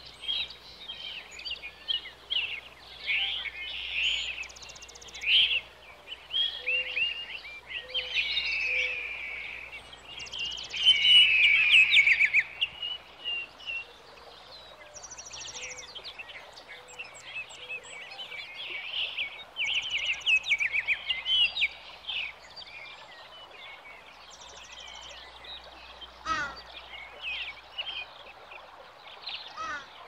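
Many songbirds singing and chirping at once, with quick high trills now and then, over a faint steady low hum.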